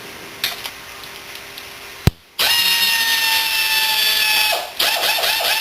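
Power drill running in short bursts, backing a bolt out of a Lifan 140 engine: a sharp click, then about two seconds of steady motor whine, then a few quick pulses as the trigger is feathered near the end.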